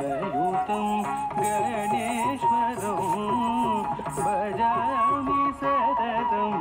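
Indian classical-style dance music: a singing voice carrying a wavering, ornamented melody over instrumental accompaniment.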